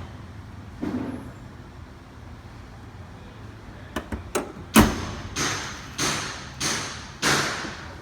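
Hood and hood-pin hardware of a car being worked shut: a soft knock, two sharp clicks, then a loud thud followed by four more knocks about every half second, each ringing briefly.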